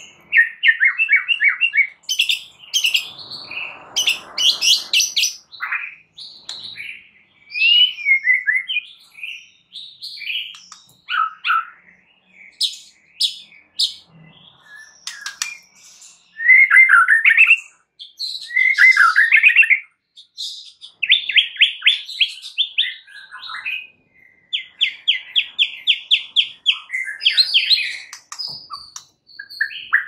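White-rumped shama (murai batu) singing a continuous, varied song of whistles and chirps, with two long runs of fast repeated notes in the second half.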